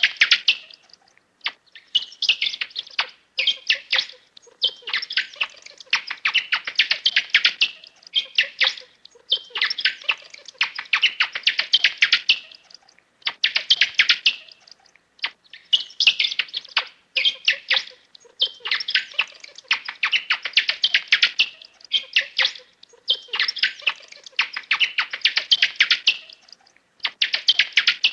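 Small birds chirping and twittering in quick chattering bursts of one to three seconds, with short pauses between them.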